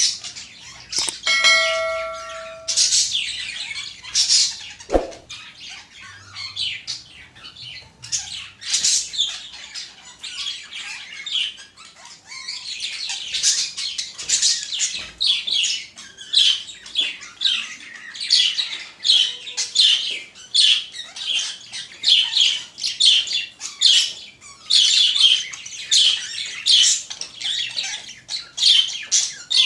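Pet budgerigars chattering in a steady stream of rapid, high chirps and squawks. About a second in, a short ringing tone with several pitches sounds for a little over a second.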